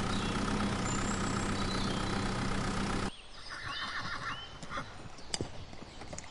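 A tractor engine idling steadily that cuts off abruptly about three seconds in, replaced by a horse neighing and then a few hoof clip-clops.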